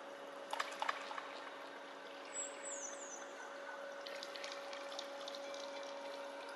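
Faint swimming-pool water lapping and trickling over a steady low hum, with a few light clicks and knocks. A short run of high, falling chirps comes about two and a half seconds in.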